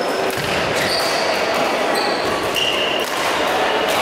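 Echoing badminton-hall din: a steady wash of play on the courts, with several short high squeaks of shoes on the court floor.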